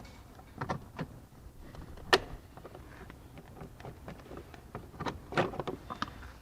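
Plastic trim cover being worked loose by hand: a string of sharp clicks and knocks from its clips and panel, the loudest about two seconds in, with a cluster of rattling clicks near the end.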